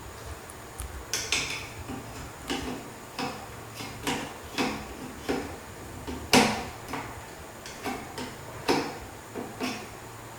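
Channel-lock pliers working a ceiling fan's centre nut tight, a series of short metallic clicks and clinks about every half to two-thirds of a second, the loudest about six seconds in.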